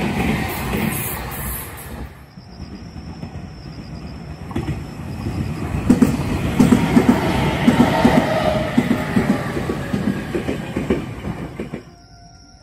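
Meitetsu electric trains passing close by: the tail of a 1800 and 1200 series pair fades away, then a 3700 series train goes past with a rapid clatter of wheels over the rail joints. The train noise cuts off suddenly near the end.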